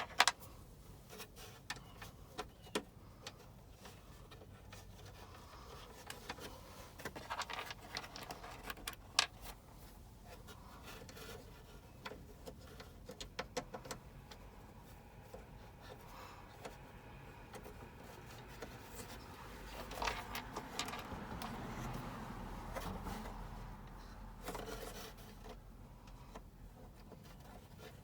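Scattered small clicks, taps and rubbing of a plastic glove box latch and its screws being handled and lined up by hand, with a sharper click about nine seconds in and a stretch of rubbing and scraping later on.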